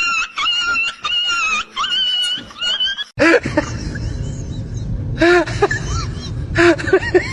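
An animal's short, high-pitched calls repeated about two to three times a second. About three seconds in they give way abruptly to shorter, lower, arching calls over a steady background noise.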